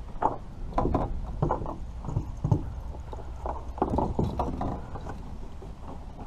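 Irregular knocks and clunks of gear and a paddle against a kayak hull, over a steady low rumble.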